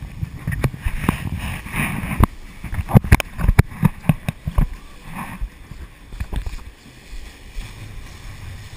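Sportfishing boat running through rough sea: a steady low rumble of engine and wind buffeting the microphone, with a run of sharp knocks and bangs through the first half, loudest about three seconds in.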